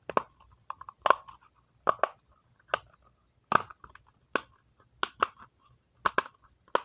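Dimple fidget toy's bubbles being pressed in one after another, giving a quick series of sharp pops, about two a second at an uneven pace.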